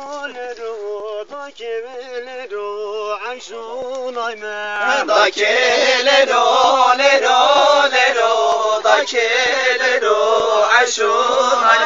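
A man singing a Zazaki halay folk song in a bending, ornamented melodic line. About five seconds in the music grows louder and fuller.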